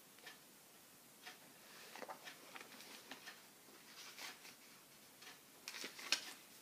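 Faint, scattered paper rustles and small ticks of a book's pages being handled and leafed through, busiest near the end.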